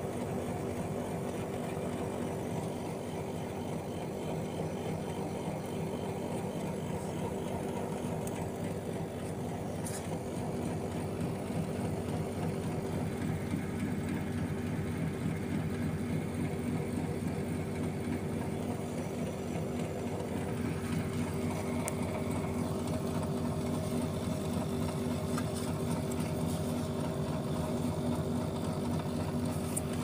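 Outdoor condenser unit of an old Elektroclima split air conditioner running, its compressor and fan giving a steady hum.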